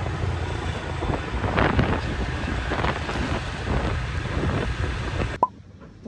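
Steady outdoor rumble of wind on the microphone mixed with street traffic noise. It stops abruptly with a short click near the end.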